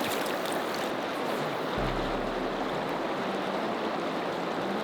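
Steady rushing of a fast-flowing trout river's current.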